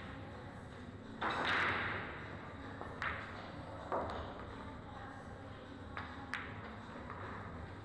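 Pool balls and cue clicking in a large hall: a few short, sharp clicks spread over several seconds, one likely the cue striking the ball near the end. A brief louder noise comes about a second in.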